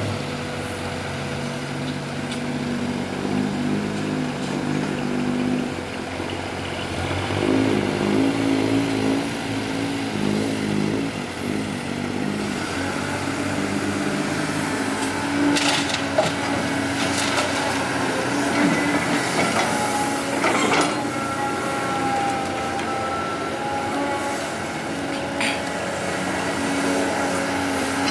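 CAT 320D hydraulic excavator's six-cylinder diesel engine working under load, its pitch shifting up and down as it digs, swings and loads soil into a dump truck. A few sharp knocks come in the second half, along with a thin whine.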